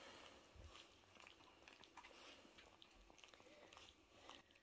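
Near silence, with faint soft licking and mouth clicks of a cat grooming its fur.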